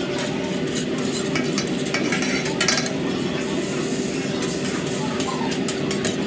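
Metal spatulas clinking and scraping on a teppanyaki griddle as noodles and vegetables fry with a sizzle, over a steady hum.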